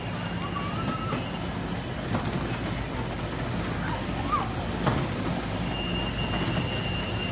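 Kiddie car carousel running: its rotating platform and drive give a steady low mechanical rumble and hum, with a few brief higher squeaks and a single knock about five seconds in.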